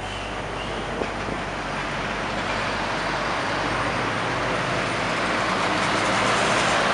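Terberg-built Volvo heavy recovery truck towing a bus and driving closer: diesel engine and rolling tyre noise growing steadily louder as it nears.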